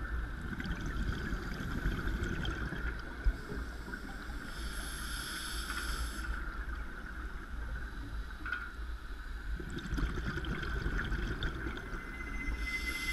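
Underwater sound of scuba diving picked up by a camera in its housing: a diver's regulator breathing and exhaled bubbles, with a hiss of breath lasting about a second and a half, roughly five seconds in.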